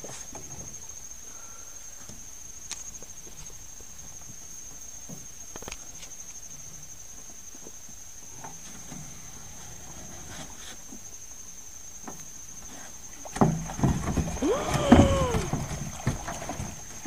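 Cast net being hauled in by its rope from an aluminium boat: faint knocks and rope sounds under a steady high-pitched whine. About 13 seconds in, loud splashing and thrashing as the net full of live fish breaks the surface beside the boat, with a brief rising-and-falling cry.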